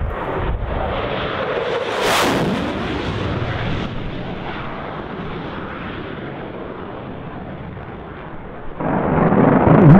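A jet aircraft making a low pass: its noise peaks about two seconds in, drops in pitch as it goes by and fades to a long rumble. Near the end a burst of 20 mm aircraft cannon fire begins, loud and lasting well over a second.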